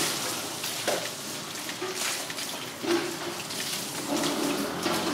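Water splashing and sloshing, with a few sharp knocks.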